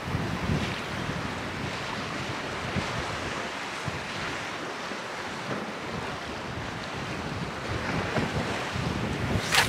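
Gusty wind buffeting the microphone over the wash of choppy sea against a sea wall, with a short sharp noise near the end.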